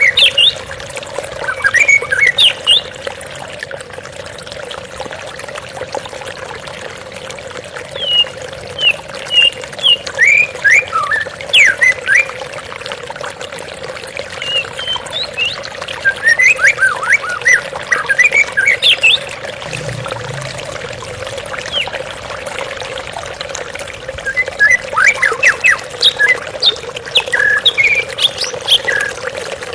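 White-rumped shama singing in four spells of quick whistled phrases over the steady sound of flowing water.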